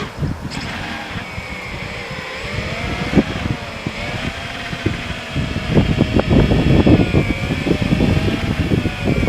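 Eachine Wizard X220 racing quadcopter's brushless motors whining in flight, the pitch rising and falling together as the throttle changes. Wind rumble on the microphone grows louder from about six seconds in.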